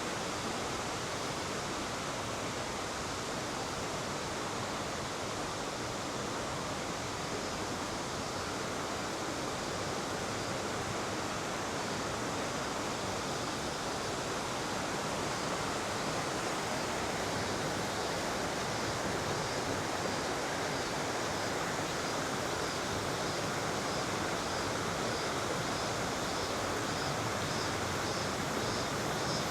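Steady rush of a flowing mountain river. From about halfway in, a faint high, rapidly repeating pulse joins it.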